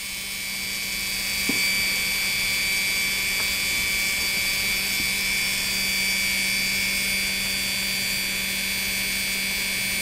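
Freshly restored and tuned PFAFF 332 sewing machine motor running flat out on an electronic foot controller pressed fully down: a steady, smooth hum with a high whine and no fluctuation. It gets a little louder over the first couple of seconds, then holds even.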